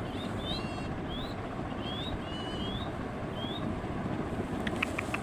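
Green ringneck parakeet giving short rising chirps, about seven in the first three and a half seconds, over a steady rushing noise. Near the end comes a quick run of sharp clicks.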